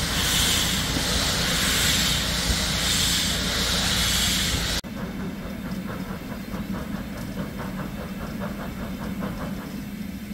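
Steam locomotive letting off steam with a loud, steady hiss. It cuts off abruptly about five seconds in, giving way to a quieter train sound with a quick, even rhythm of short beats.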